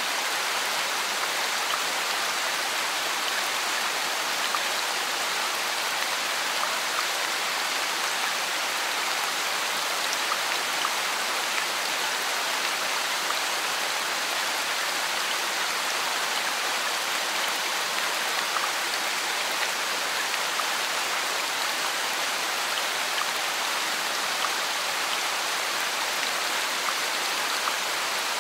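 Heavy rain falling steadily: an even, unbroken hiss of drops.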